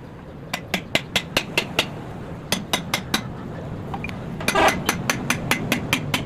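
Rapid metal-on-metal tapping, about five sharp taps a second in short runs with brief pauses, like a hammer tapping parts during a diesel engine piston and sleeve rebuild.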